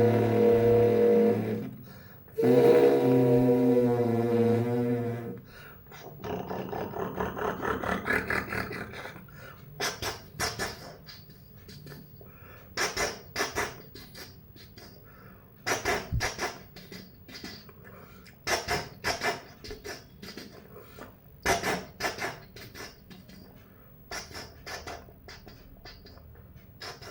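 A man imitating a passing diesel locomotive by mouth: two long horn-like blasts held as a steady chord, then a rushing build and pairs of sharp clacks like wheels over rail joints, repeating every few seconds and fading away.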